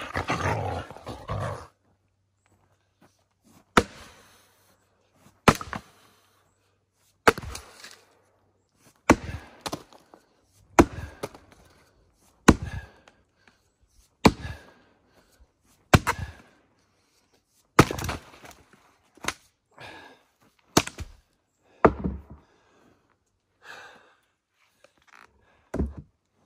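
Long-handled axe splitting firewood rounds on a stump chopping block: a series of sharp chops about every one and a half to two seconds.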